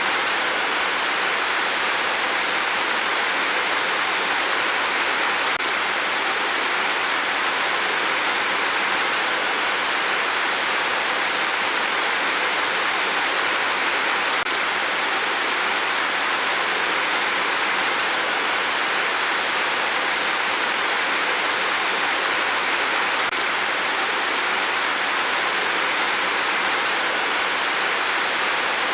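Steady rain falling, an even unbroken hiss with no single drops standing out.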